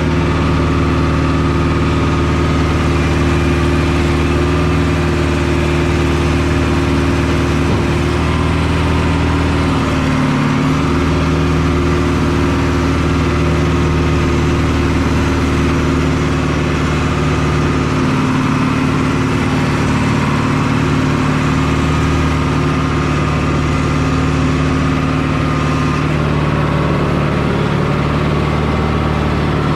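Tractor engine running steadily under load while pulling a round baler through the hay, with a slight shift in engine pitch about ten seconds in and again near the end.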